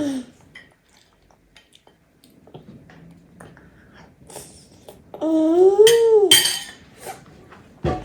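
Spoon and cutlery clinking and scraping against a dish in small, scattered taps. About five seconds in, a loud drawn-out vocal call lasts about a second, rising then falling in pitch, and ends in a short sharp noise.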